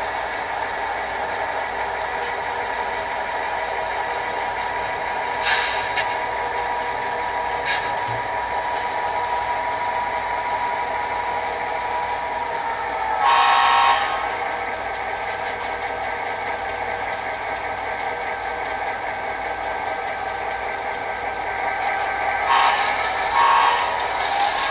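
HO-scale model diesel locomotive's onboard sound running a steady engine sound, with one horn blast of about a second about halfway through and two shorter blasts near the end. A couple of brief clicks come in the first third.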